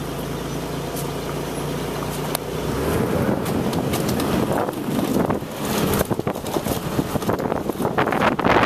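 A vehicle's engine running with a steady low hum. From about three seconds in, louder, irregular wind buffeting on the microphone covers it as the vehicle moves along.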